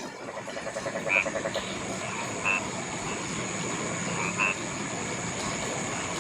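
Rice-field frogs calling: a run of rapid pulsed croaks in the first second and a half, then a few short single calls, over a steady hiss of rain and a thin high steady tone.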